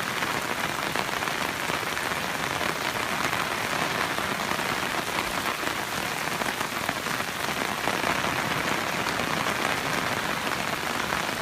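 Heavy rain falling steadily, an even, unbroken hiss of drops striking the ground and surfaces.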